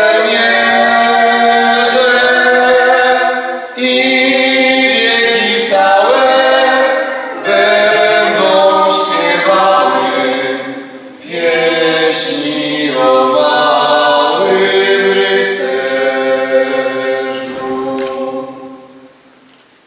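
Choir of men's and women's voices singing a slow song in several phrases with short breaks between them. The singing dies away shortly before the end.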